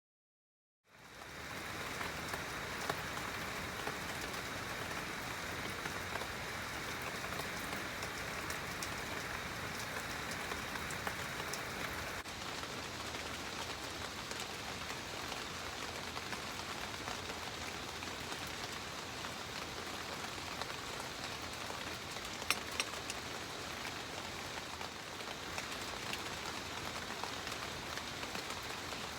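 Steady rain falling, with scattered individual drops ticking sharply. It fades in about a second in.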